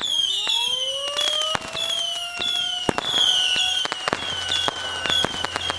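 Fireworks: a whistle rising slowly in pitch over the first three seconds, a run of short falling whistles one after another, and many sharp cracks and bangs throughout.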